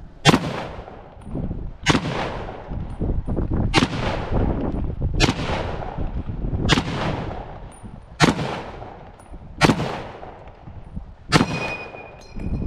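M1 Garand semi-automatic .30-06 rifle firing eight shots about a second and a half apart, each with a long echoing tail. Right after the eighth shot comes a brief metallic ring, the ping of the empty en bloc clip ejecting.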